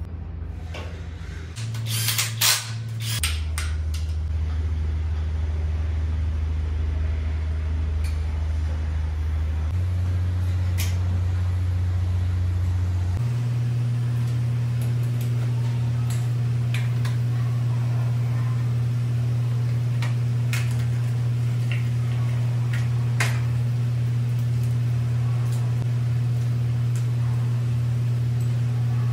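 Sharp metallic clicks and clinks of engine parts being handled, loudest in a cluster about two seconds in, with scattered fainter clicks later. Under them runs a steady low hum whose pitch shifts abruptly several times.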